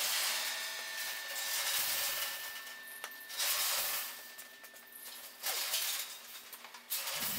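Wheeled steel-plate rack being pushed across a concrete floor: faint rolling, scraping and rattling that comes and goes in several short swells.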